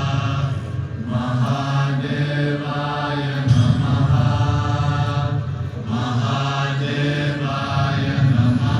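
Mantra chanting: voices intoning over a steady low drone, as part of a devotional soundtrack.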